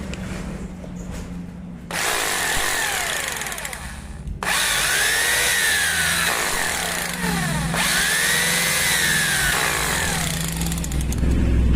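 2-20 hammer drill's electric motor test-run, with a steady low hum; twice it speeds up and slows down again, its whine rising and falling.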